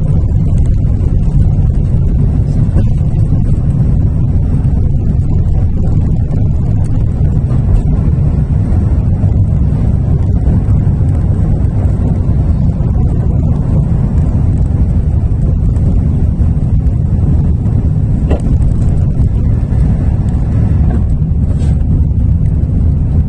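Aircraft taking off: a loud, steady low rumble that holds evenly throughout.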